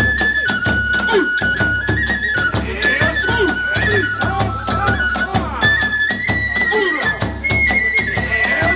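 Kagura hayashi ensemble playing: a bamboo flute holding and stepping through a high melody over fast, steady drum strokes and ringing small hand cymbals.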